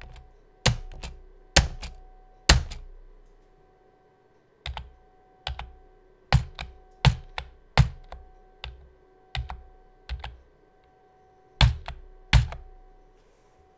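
Keys of a Sharkoon Skiller membrane keyboard being pressed one at a time at an uneven pace, each a sharp clack, often followed quickly by a softer second click. There is a short pause about three seconds in.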